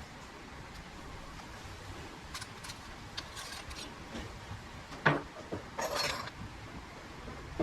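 Hard objects being handled: a few light clinks, then one sharp knock about five seconds in, followed by a short rustle or scrape.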